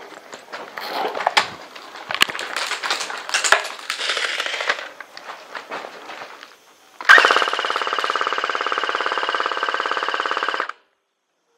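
Scuffing and clicks of movement, then about seven seconds in an airsoft electric gun fires one long full-auto burst, a loud fast steady buzz of about three and a half seconds that cuts off suddenly.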